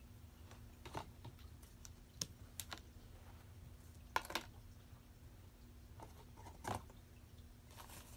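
Faint, scattered light taps and rustles of a cat playing with toys and their card packaging on carpet, a few soft clicks at a time, the loudest about four seconds in and again near seven seconds.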